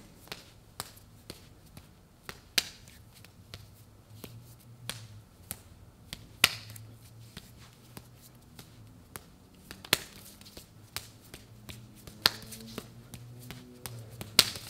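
Hands and forearms slapping against each other in a Wing Chun bil gee hand drill as two partners strike and parry: a string of sharp slaps at an uneven pace of about two a second, a few of them louder than the rest.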